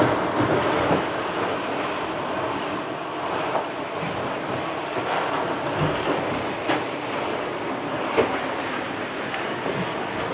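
Wind buffeting the microphone and waves rushing along the hulls of a sailing catamaran beating into strong wind and rough seas, with a few short slaps of water scattered through.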